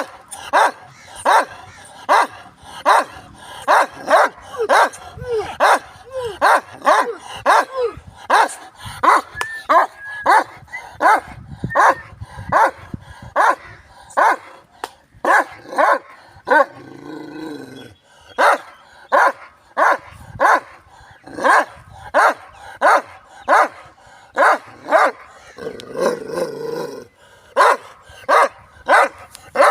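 A Punjabi village dog (Jhoki) barking over and over, about two barks a second, with two short breaks in the run, one about halfway through and one near the end.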